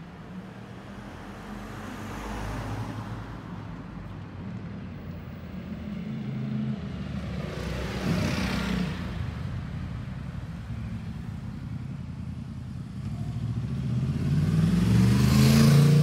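Cars driving past on the street one after another, each swelling and fading: a faint pass about two seconds in, another about halfway through, and the loudest building up near the end.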